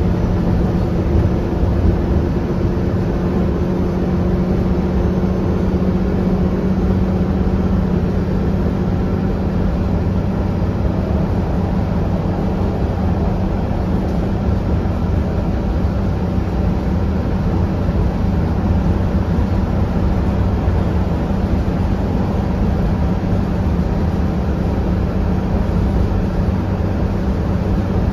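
Cummins ISL9 diesel engine of a 2013 Gillig BRT transit bus running under way, heard inside the passenger cabin as a steady low drone mixed with road and body rumble. The hum is a little stronger in the first third.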